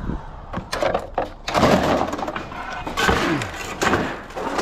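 Knocks, clatter and scraping from a piece of discarded exercise equipment, likely a treadmill, being hauled and moved about, ending in a heavy bang near the end.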